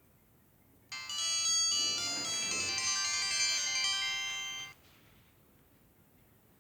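Samsung SGH-X210 mobile phone playing a ringtone: a short, bright melody of high notes with several sounding at once, starting about a second in and cutting off sharply about four seconds later.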